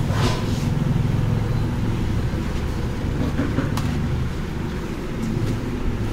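Steady low rumble of a motor vehicle's engine running close by, with light handling sounds as a wet banana leaf is wiped on the table.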